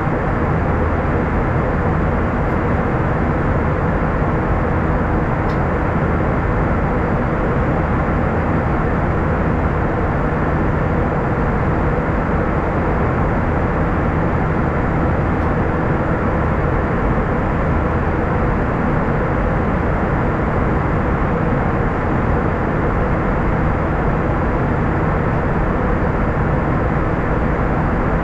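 Steady engine and airflow noise inside the cabin of an Airbus A320 in flight, an even, unchanging rumble.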